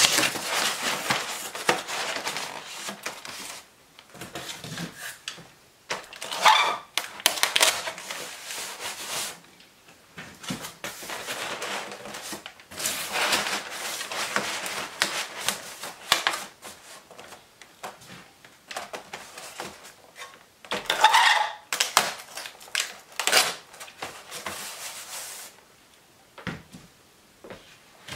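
Corrugated cardboard rustling and scraping as sheets are folded around a large plate, with several spells of brown packing tape being pulled off the roll and pressed down, the loudest sounds. It goes quieter near the end.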